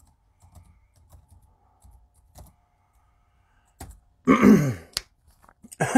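Light, scattered clicks of typing on a computer keyboard for the first two seconds or so. About four seconds in comes a brief wordless vocal sound from a man, the loudest thing here, and speech begins just at the end.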